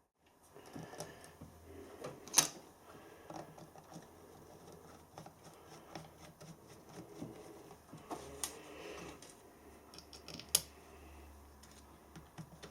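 Quiet handling noises of an angle grinder's gearbox being put back together: scattered small clicks and scrapes of metal and plastic parts, with two sharper clicks, one about two seconds in and one near the end.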